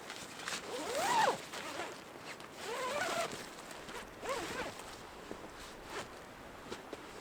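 A zipper being pulled in three short runs about a second and a half apart, each with a rising and falling pitch.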